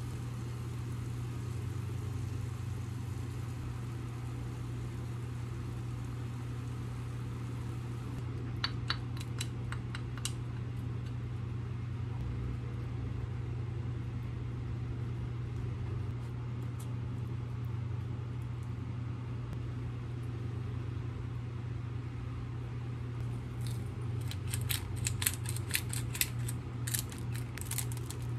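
A steady low mechanical hum, with a short run of sharp clicks about nine seconds in. A denser run of quick clicks near the end comes from a hand spice grinder being twisted.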